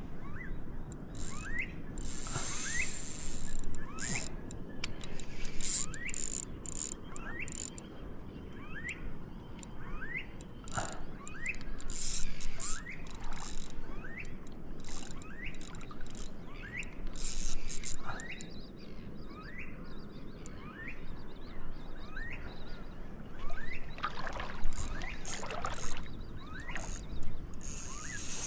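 Fishing reel being cranked in steady turns to wind in a hooked fish, its mechanism giving a short rising squeak about once a second. A louder burst of noise comes near the end.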